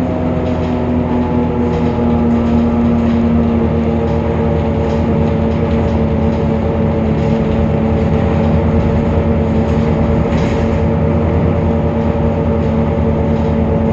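Temsa Avenue LF city bus's DAF PR 228 diesel engine and ZF Ecolife automatic gearbox running steadily, with a low rumble and a steady whine held at an even pitch. It is the sound the uploader calls strange and unlike the usual for this bus.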